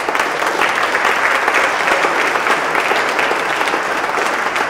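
A congregation applauding: many hands clapping at once, steady throughout.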